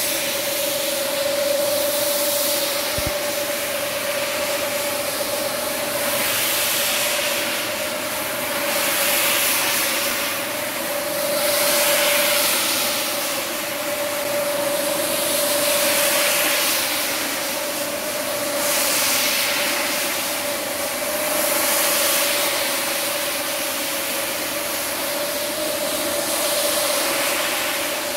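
Rotary carpet-scrubbing machine running, a steady motor hum under the hiss of its brush working through shampoo foam on a rug; the hiss swells and eases every few seconds.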